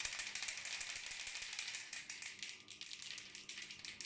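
Aerosol can of spray lacquer from a Cramer enamel repair kit being shaken, its mixing ball rattling quickly and steadily inside. The shaking stirs the paint before spraying.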